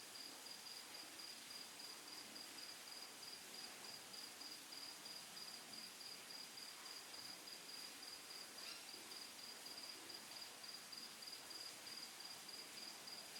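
Near silence: faint room tone with a thin, high-pitched chirping that pulses evenly, about five times a second, without a break.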